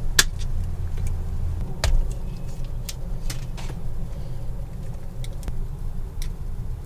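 Scattered sharp clicks and small metal taps from hands working a wire and a crimping tool at a negative bus bar. Under them runs a steady low hum.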